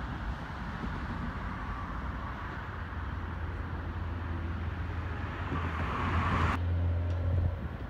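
Roadside highway traffic noise with a low engine drone that builds through the middle as a vehicle approaches. The sound changes abruptly about six and a half seconds in.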